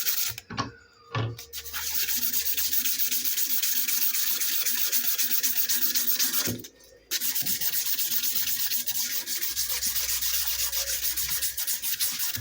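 Steel pliers handles being hand-sanded with sandpaper in quick back-and-forth strokes, a dense scratchy rasp, with a short pause about halfway through.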